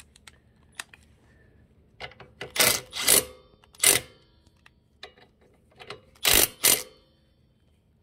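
Electric impact wrench hammering in short bursts as it tightens a 12 mm bolt on a motorcycle's front sprocket cover: three quick bursts in the first half and a final double burst near the end.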